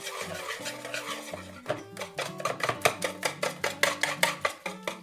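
Wire whisk beating a thin egg, flour and milk batter in a plastic bowl. The rapid strokes click rhythmically against the bowl and get faster and louder about two seconds in.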